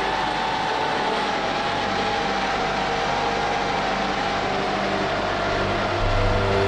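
DJI FPV quadcopter's motors and Gemfan Hurricane 5536 three-blade props in flight: a steady whine that wavers slightly in pitch with the throttle, over a rush of air. Faint background music with low notes joins in, getting louder near the end.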